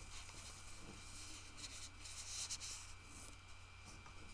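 Faint rustling and soft crinkling of plastic packaging being handled and pulled off a yarn cake, in a few brief spells, most of them between one and three seconds in.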